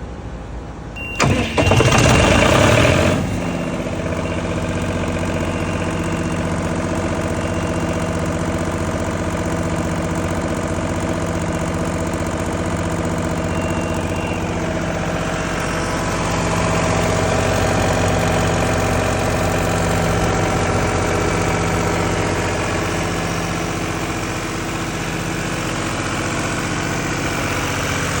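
A John Deere diesel engine on a 30 kW MTU generator set is cranked by its starter for about two seconds, catches, and settles into steady running.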